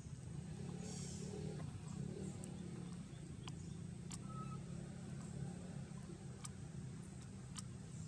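A steady low hum, with a handful of short sharp clicks scattered through.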